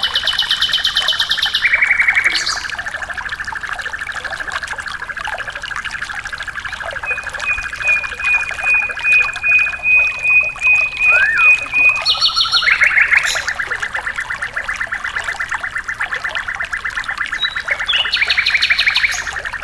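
Recorded songbird calls: long, rapid rattling trills with a high, steady whistled note held for several seconds in the middle, over faintly trickling water.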